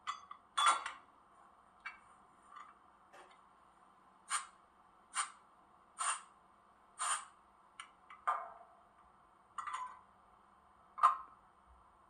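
Coupling sound from the sound decoder of a Roco H0 model ÖBB class 1044 electric locomotive, played through its small onboard speaker: about a dozen short metallic clinks and clanks of couplings at uneven intervals, over a faint steady hum.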